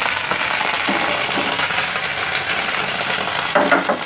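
Red chilies, bird's eye chilies, garlic and shallots sizzling in hot oil in a small frying pan, a steady hiss. The chilies are still wet, so the oil spits.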